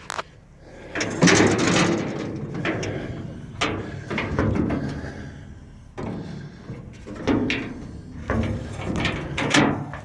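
Irregular metal clunks, knocks and rattles, consistent with the cab door of a John Deere 690C excavator being opened and handled. The loudest knock comes about a second in, with several more spread through.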